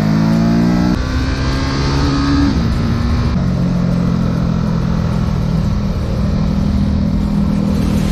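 Ducati Supersport S's 937 cc Testastretta L-twin under acceleration: the engine note climbs, drops sharply about a second in as it shifts up, climbs again, then settles into steady running at an even pitch, with wind noise over it.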